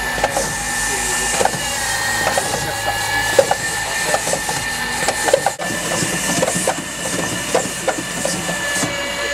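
GEKKO Facade cleaning robot with its rotating brush running on glass: a steady high whine over a hiss, with scattered small clicks and knocks. The sound breaks off for a moment about halfway through, then carries on.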